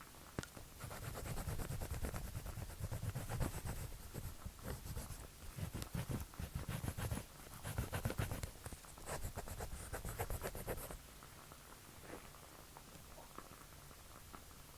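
Drawing strokes scratching rapidly across paper in quick, dense runs, starting about a second in and stopping about eleven seconds in.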